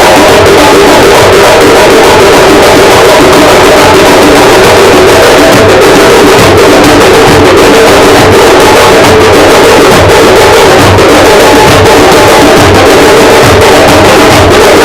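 Loud music with a steady drum beat over sustained mid-range tones.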